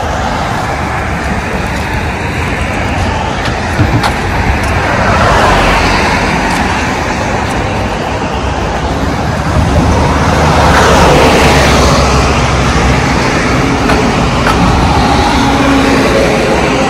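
Road traffic passing on a highway bridge: a steady rush of tyres and engines that swells twice as vehicles go by close, about a third of the way in and again just past the middle.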